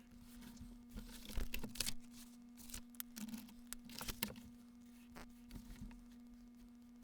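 Irregular rustling and small clicks of things being handled, over a faint steady hum.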